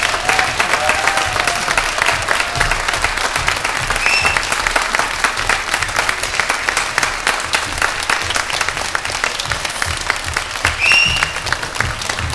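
Concert audience applauding with dense, steady clapping after an orchestral performance. Two short high-pitched calls from the crowd cut through, about four seconds in and again near the end.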